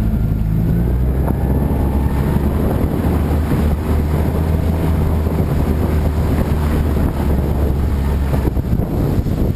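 A jon boat's outboard motor running at speed under throttle, a steady low drone with water rushing along the hull and wind buffeting the microphone. The motor's hum drops off shortly before the end.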